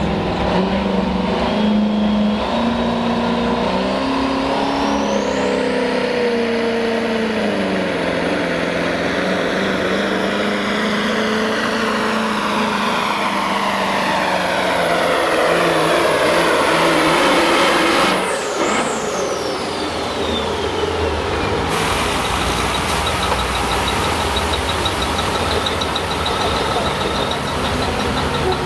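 Diesel semi truck pulling a sled under full throttle: the engine and its turbo whistle climb over the first few seconds, then the pitch falls slowly for a long stretch. About eighteen seconds in there is a sharp hiss as the throttle comes off, the turbo whistle winds quickly down, and the engine settles to a steady idle.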